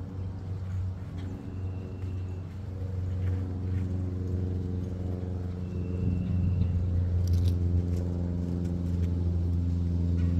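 An engine running with a steady low hum that grows gradually louder, with a few faint clicks a little past the middle.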